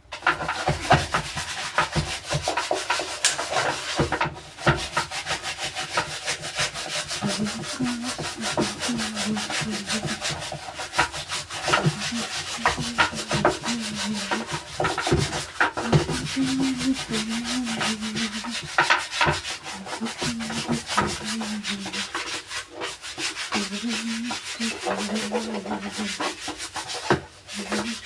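Hand scrubbing inside a washing machine tub being cleaned with bleach and detergent: a harsh, continuous rubbing of many quick strokes that starts abruptly. A low wavering hum comes and goes from about seven seconds in.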